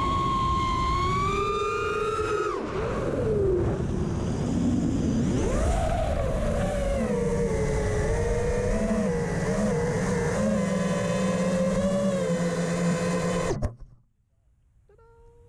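ImpulseRC Reverb 5-inch FPV quadcopter, its T-Motor F40 Pro motors and three-blade props whining, the pitch rising and falling with throttle. It cuts off abruptly about 13.5 seconds in, as the quad lands and disarms. A faint short beep follows near the end.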